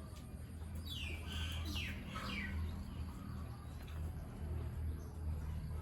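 A bird calling: a few quick chirps, each sliding downward in pitch, about one to two and a half seconds in, over a steady low hum.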